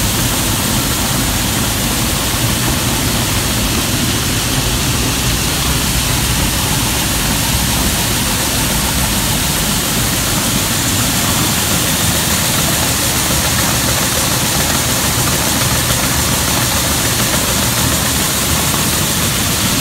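Grain bin unload auger and electric drag conveyor running, with shelled corn pouring into the auger tube: a loud, steady mechanical din with a low hum under a rushing hiss of grain.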